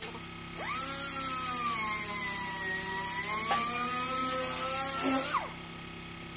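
Small electric motor of a sanding machine switched on, spinning up with a rising whine, running for about four and a half seconds with a slightly wavering pitch, then switched off and winding down.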